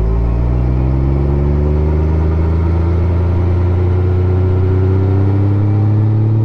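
Honda Goldwing 1500's flat-six engine pulling up a mountain grade, its revs climbing slowly and steadily.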